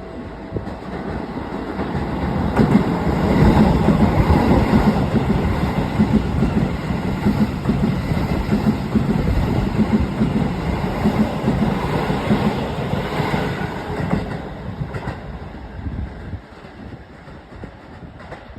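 Keisei 3000 series electric commuter train passing over a level crossing, its wheels clattering over the rails in a steady rhythm. The sound builds from about two seconds in and fades away over the last few seconds.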